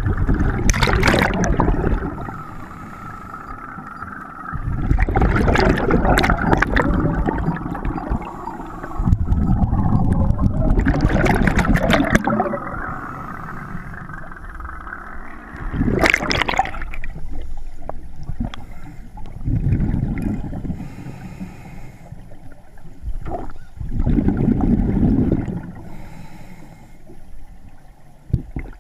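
Scuba regulator breathing underwater: a burst of gurgling exhaled bubbles roughly every four to five seconds, six breaths in all, with quieter stretches between.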